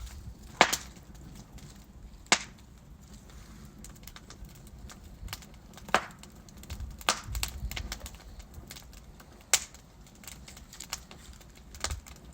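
Wood fire with logs burning and crackling: sharp, irregular pops and snaps over a low, steady rush of flame. A handful of loud cracks stand out, with a run of smaller ticks near the middle.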